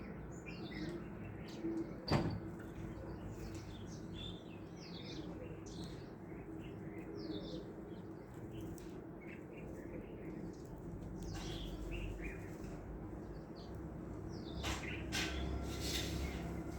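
Several small birds chirping in short, scattered high notes over a low steady background hum, with one sharp click about two seconds in.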